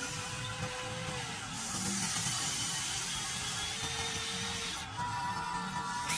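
Model RC excavator at work: a steady hissing, scraping noise, with a faint motor whine that comes and goes.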